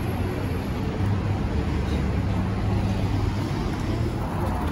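Street ambience: a steady low rumble of road traffic passing along a city street.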